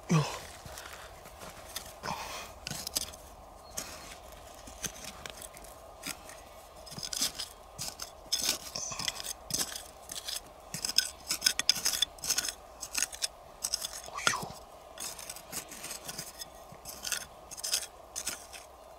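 Fingers scraping and crumbling loose soil and small stones in a shallow hole: a run of quick, scratchy crunches that grows busier about seven seconds in. A short falling sound right at the start is the loudest moment.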